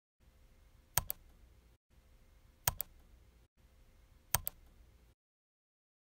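Three computer mouse clicks, evenly spaced a little under two seconds apart. Each is a quick double click of button press and release, over a faint hiss.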